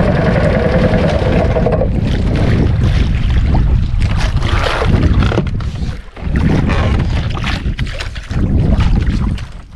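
Wind buffeting the microphone over water washing against a small outrigger boat's hull, loud and steady, with brief dips about six seconds in and at the end.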